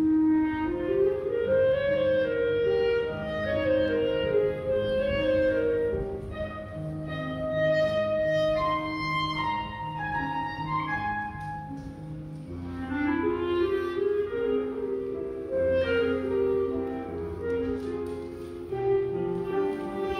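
Instrumental background music: a melody of held notes moving step by step over a lower bass line.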